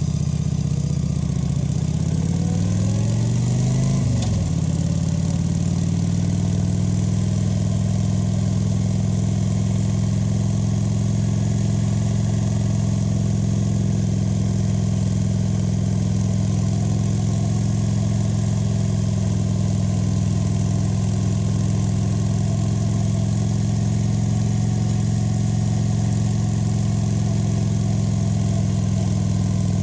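Kawasaki VN 900's V-twin engine pulling as the motorcycle accelerates. Its pitch rises for about two seconds, drops sharply about four seconds in, then settles into a steady, even run.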